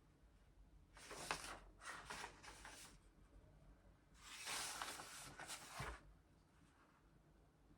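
Faint rustling handling noises in a quiet room, in two short spells, the second ending with a light knock.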